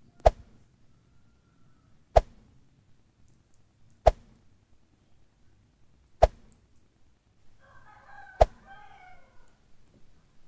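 Five sharp clicks, evenly spaced about two seconds apart. Between the fourth and fifth, a faint rooster crows once, drawn out for about a second and a half.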